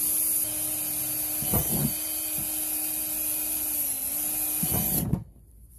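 Cordless drill running at a steady speed, boring holes through a plastic storage-tub lid, with a few knocks as the bit works through the plastic. It stops suddenly about five seconds in.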